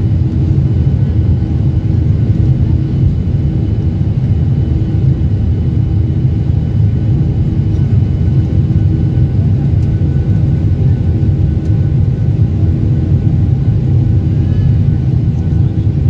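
Jet airliner's engines at takeoff power heard from inside the cabin as the plane climbs away: a loud, steady low rumble with a faint steady whine above it.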